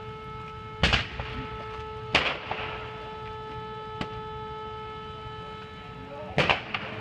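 Car on fire giving out sharp explosive bangs: three loud ones about a second, two seconds and six and a half seconds in, and a smaller crack in between, each with a short echo.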